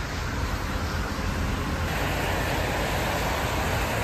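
Outdoor city street noise: road traffic running steadily, with a rushing hiss that gets louder about two seconds in.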